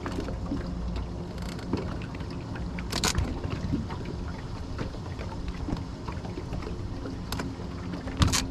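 Wind rumbling on the microphone aboard a small fishing boat, over a steady low hum, with two sharp knocks, one about three seconds in and one near the end.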